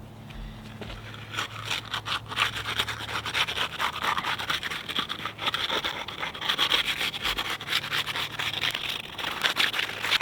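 Hand concrete groover (crack former) being worked through fresh concrete along a 2x4 guide to cut a control joint: rapid, repeated rough scraping and rubbing strokes. A steady low hum runs underneath and fades out near the end.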